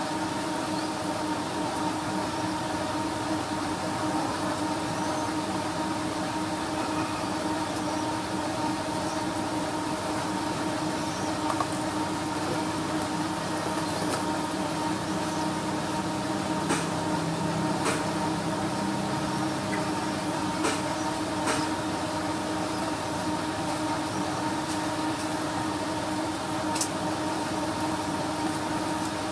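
A steady machine hum with several fixed tones, unchanging throughout, with a few faint clicks in the second half.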